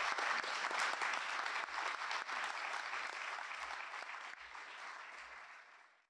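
Audience applauding, fading out over the last two seconds or so.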